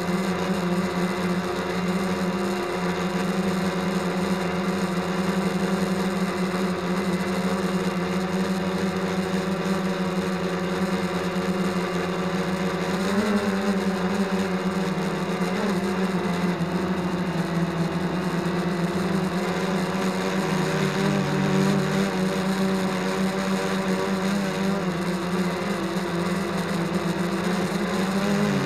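Electric motors and propellers of a camera-carrying model aircraft, heard from on board: a steady buzzing whine that shifts in pitch about 13 seconds in and again around 20 seconds.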